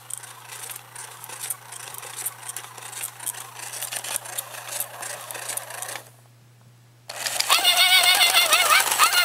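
Tekno robot dog toys' small motors and plastic gears whirring and clicking irregularly as they move. About six seconds in there is a second-long gap, then a loud warbling electronic sound with wavering pitch starts from the toy's speaker.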